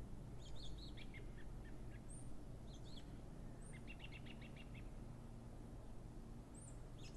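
Small songbirds chirping in the background: scattered short high chirps, with a quick run of about ten rapid notes a little under four seconds in, over low steady background noise.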